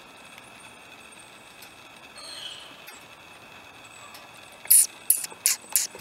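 Pileated woodpecker pecking into the thick bark of a Douglas fir: sharp, loud knocks, about three a second, starting near the end. Behind them is the steady hiss and whine of a camera lens stabilizer.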